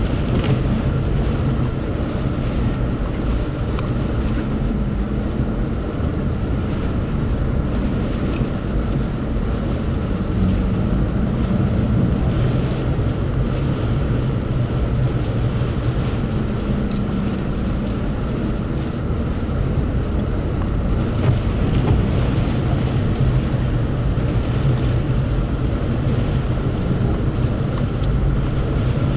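A road vehicle running steadily: a continuous low rumble with a faint steady hum above it and no breaks.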